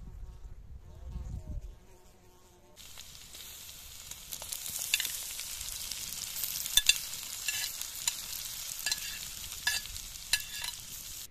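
Chopped tomatoes dropping into hot oil and onion in a black steel pan over a wood fire, sizzling steadily, with sharp clicks of a knife scraping them off a plate. A few low thumps come first, and the sizzle starts suddenly about three seconds in.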